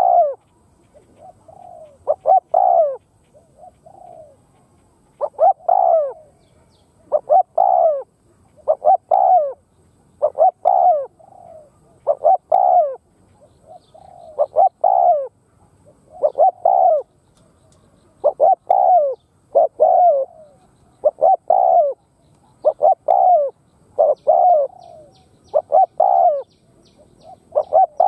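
Spotted dove giving its rapid bowing coo (gù) over and over, short phrases of a few coo notes repeating about every second and a half to two seconds.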